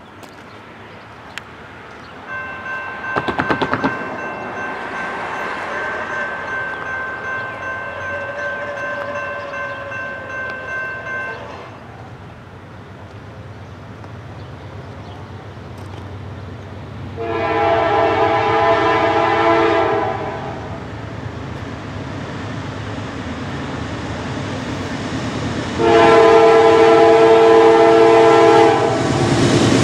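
Air horn of an approaching Norfolk Southern GE Dash 9-44CW diesel locomotive: a long, fainter chord lasting about nine seconds, then two loud blasts of about three seconds each, the last the loudest. Right at the end the rumble of the oncoming train starts to rise.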